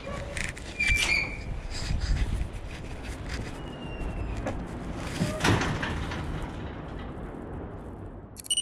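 A metal gate door pushed open with a short squeal and clank about a second in, over street ambience with a steady low rumble and scattered knocks. A second clank comes about halfway through, and a brief high ringing tone just before the end.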